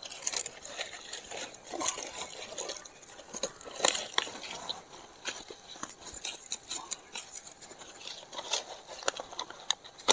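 Fresh banana leaves rustling and crinkling as they are handled and bent around a stick, with irregular sharp crackles, the loudest a little under two seconds in and about four seconds in.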